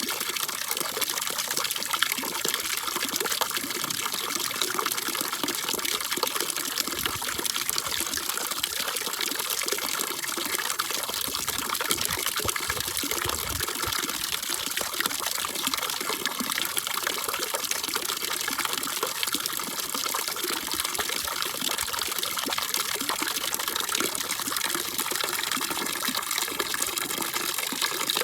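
Steady rushing water: an unbroken, even hiss that stays at one level throughout.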